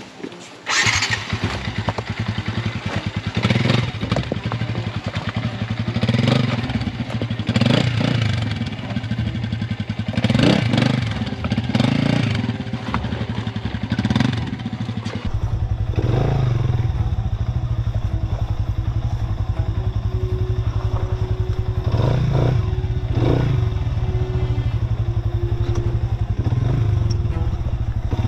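Motorcycle engine running at low speed with repeated short revs that rise and fall every couple of seconds. Around halfway it settles into a steadier, deeper run, with a couple more revs later.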